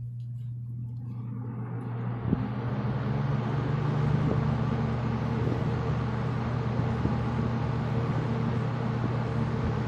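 1975 Kmart K223-W box fan with a Westinghouse motor running on high: a steady motor hum with a rush of air from the blades that builds as it spins up over the first two to three seconds, then holds steady.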